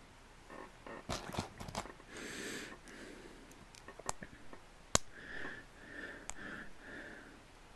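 Loose plastic LEGO pieces clicking and tapping as they are picked up and handled, with about half a dozen sharp clicks, the loudest a little before the middle. Soft hissy noises, including a few short ones in the second half, come between the clicks.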